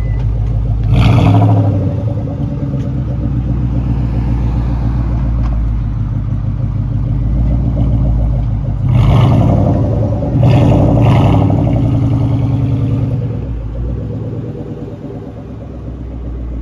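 2003 Ford Mustang Mach 1's 4.6-litre DOHC V8, a replacement engine with about 38,000 miles on it, idling through its dual exhaust. It is revved briefly about a second in, then three more times close together between about nine and eleven seconds in. Near the end the car pulls away and the sound gets quieter.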